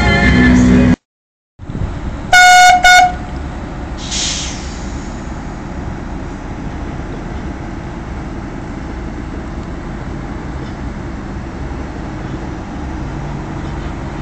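Two loud horn toots in quick succession, then the steady running of a Sumitomo SH300 tracked forestry harvester's diesel engine, with a brief hiss about four seconds in.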